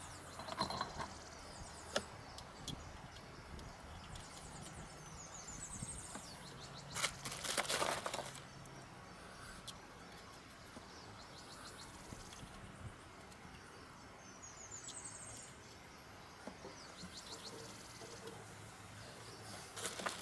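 Quiet background with a click, a brief louder rustle about seven seconds in, and a small bird's rising trill heard twice.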